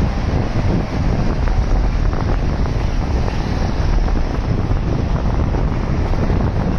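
Steady wind rumble buffeting the microphone of a camera carried on a moving bicycle.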